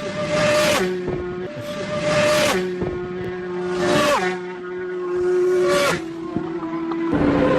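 A vehicle passing by again and again, about every one and a half to two seconds: each pass swells to a whoosh as the engine's steady tone drops in pitch and fades.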